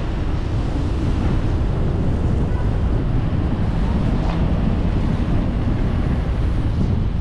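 Wind buffeting the action camera's microphone on a moving electric scooter: a steady, deep rush of noise with no letup.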